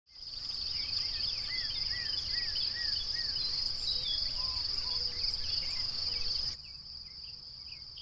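Summer grassland ambience: a steady high-pitched chorus of insects, with birds calling over it, including a row of about five short arching whistled notes in the first few seconds, and a low rumble underneath. About two-thirds of the way through, the ambience drops to a quieter insect chorus.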